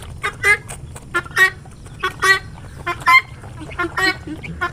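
Poultry calling in short, repeated honks, one or two every second, some in quick pairs.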